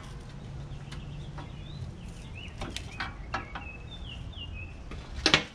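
Hand tools clicking and tapping on the steel frame and adjustment bolts of a manual reel mower, a few separate clicks, then a louder clank near the end. A bird chirps a few times faintly behind it in the middle.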